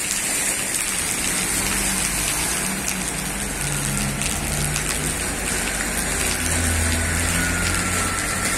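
Steady rain falling on a flooded street, with an SUV's engine running low as it drives slowly through the floodwater. The engine is loudest near the end.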